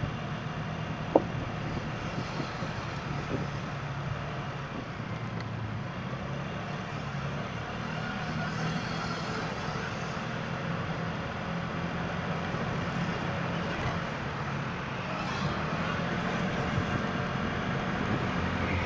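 SYM Jet SR scooter's single-cylinder engine running steadily while riding in traffic, heard from the scooter's front shield along with road and wind noise and other passing vehicles. There is a single sharp click about a second in, and the sound grows slowly louder toward the end.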